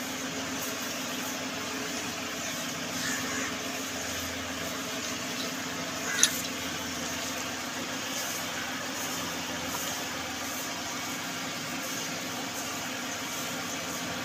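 Milk squirting into a steel pail of frothy milk as a cow is milked by hand, over a steady low mechanical hum. One sharp click about six seconds in.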